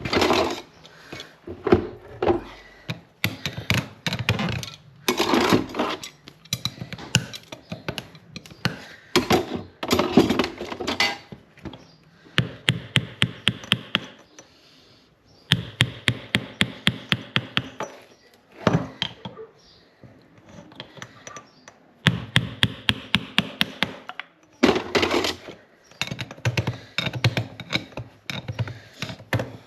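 Farrier's hand tools working a horse's hoof: irregular scraping strokes, then several runs of quick, evenly spaced sharp taps with short pauses between.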